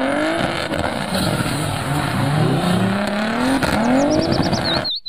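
Nissan 350Z drift car's engine revving hard, its pitch rising and falling again and again, over the screech of tyres spinning and sliding. The sound cuts off abruptly just before the end.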